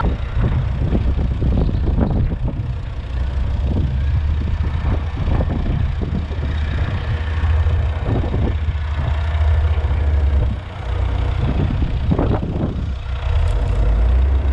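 Tractor engine running, its sound swelling and easing irregularly, with a brief dip about three quarters of the way through.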